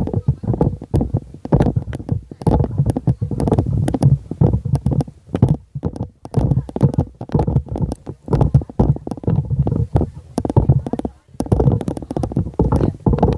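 Loud, uneven low rumbling with many crackles throughout: noise on the phone's microphone, buffeting rather than any sound from the show ring.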